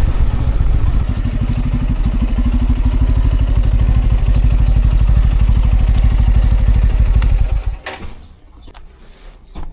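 Bajaj Pulsar N250's single-cylinder engine running steadily with an even pulse, then switched off about three-quarters of the way through, the sound cutting out abruptly. A few small clicks and knocks follow in the quiet.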